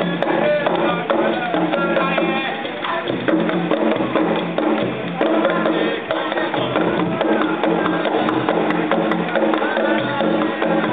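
Live Caribbean band music with percussion and wood-block clicks, with voices mixed in.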